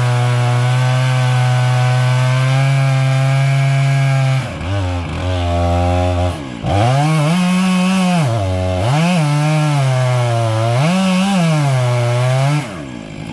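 Chainsaw running at high speed in a cut, held steady for about four seconds. It then drops and revs up and down several times as it works through the wood, and falls back to a lower speed near the end.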